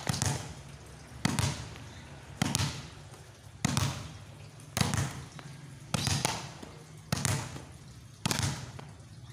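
A volleyball slapped down hard by hand onto a concrete court and bouncing back up, eight times at about one smack a second, each a sharp smack that dies away within half a second: a wrist-snap spiking drill.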